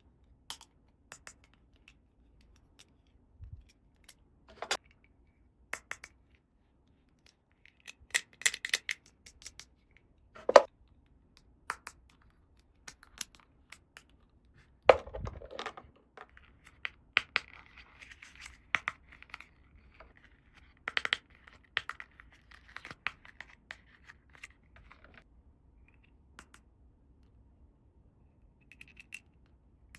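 Small plastic toy pieces and packaging being handled: scattered clicks and taps, a louder knock about halfway through, then several seconds of scratchy rubbing mixed with clicks.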